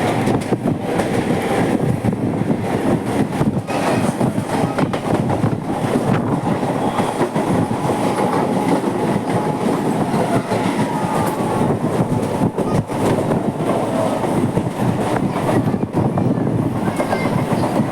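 Mumbai suburban electric local train running on the track: a steady loud rumble with wheels clacking over rail joints, and a faint high whine through the middle.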